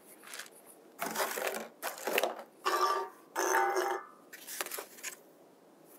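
Foil-wrapped food, packaging and a plate being handled and set down: about five short bursts of crinkling and rustling, with faint scraping tones in the middle two.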